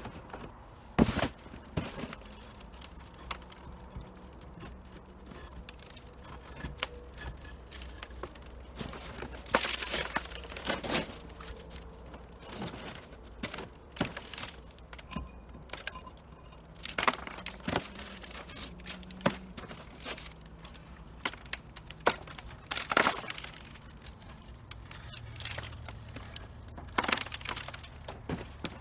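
Cinder block being broken out: irregular sharp knocks and cracks, a few of them loud, with crumbling and falling debris between them.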